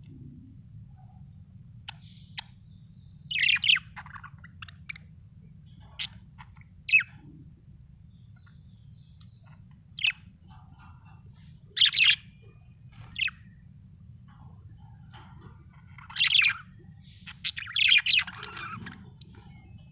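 Budgerigar chirping in short, scattered calls every second or two, with a quick cluster of calls near the end, over a steady low hum.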